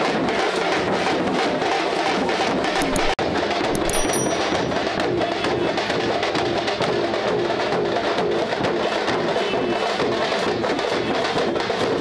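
Loud, fast rhythmic drumming with hard percussive strokes, music made of drums, with a brief dropout about three seconds in.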